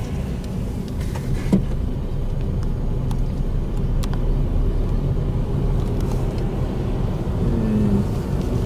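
A car driving along a road: steady low engine and tyre rumble.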